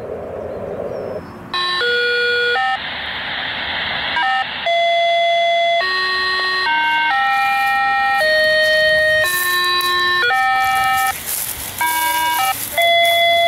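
A hidden fox-hunt transmitter's tone signal heard through a handheld ham radio receiver's speaker. After about a second and a half of radio hiss, a run of electronic beep tones starts, stepping from pitch to pitch like a simple tune, with static between the notes. The operator is picking it up with no antenna, so the transmitter is close by.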